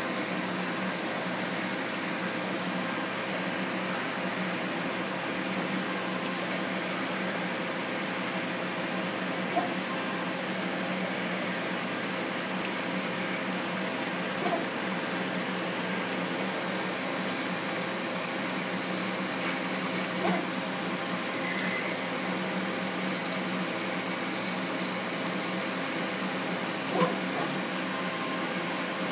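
Hurco BMC 20 CNC machining centre cutting metal, its spindle and tool running under a flood-coolant stream as a steady hum with splashing. A few brief ticks come through the cutting noise.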